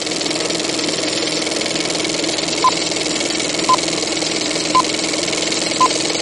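A steady machine-like whir with a low hum, over which short high beeps sound about a second apart, four times, starting a little before halfway through.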